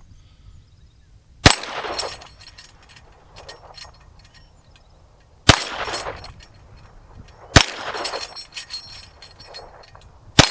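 Four gunshots spaced a few seconds apart, each followed at once by the clang and brief ring of an AR500 steel target plate being hit.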